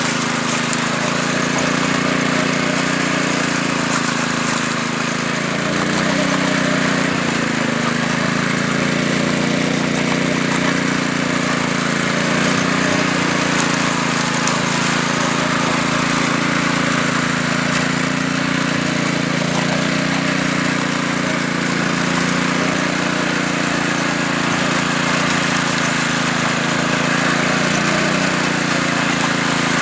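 Small engine of a concrete power trowel running steadily, its pitch wavering a little as the machine works the surface.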